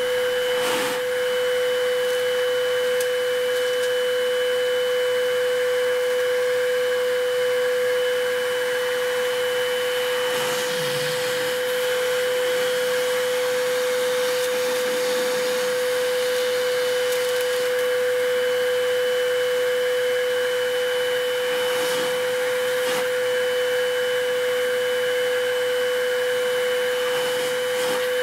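Vacuum motor running steadily with a constant high whine, pulling air through the drilled holes of an MDF vacuum bed. A few faint knocks as a hand presses on the bed.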